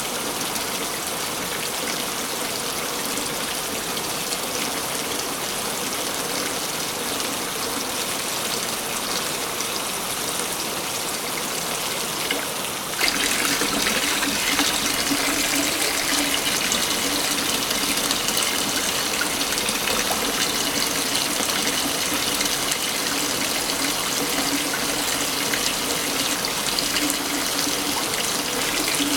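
Waterfall, rushing water falling steadily. About 13 seconds in the sound jumps suddenly louder and brighter, as at a splice between two recordings.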